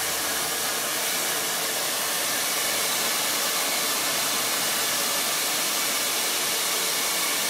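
Handheld hair dryer running steadily, blowing air onto a dog's coat: an even, unbroken rush of air.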